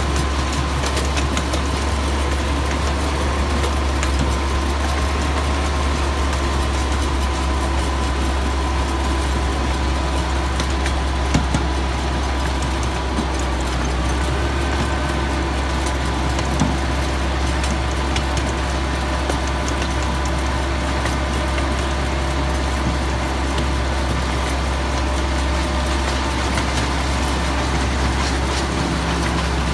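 Miniature park train's locomotive engine running steadily as the train travels, a low drone with a thin high whine over it, heard from aboard a trailing passenger car. Two brief knocks sound about halfway through.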